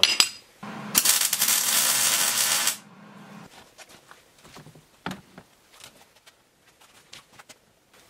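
Electric arc welding for about a second and a half, a steady crackling buzz over a low hum, starting about a second in. After it, light clinks and knocks of steel as the furnace's hinged steel lid and hook are handled.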